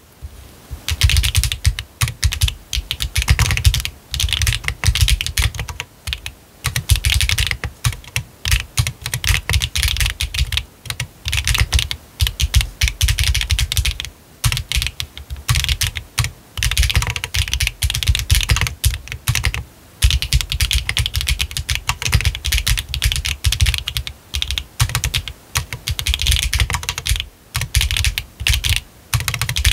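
Typing on a Techbear TB8 mechanical keyboard with HMX 幻紫 linear switches, gasket-mounted on a 1.6 mm PCB with no foam. Fast runs of keystrokes broken by short pauses, each key giving a deep thock with a sharp clack on top.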